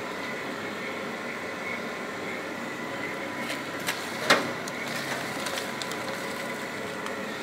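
Industrial machinery running with a steady hum and a high-pitched whine. A sharp knock about four seconds in, with a few lighter clicks around it.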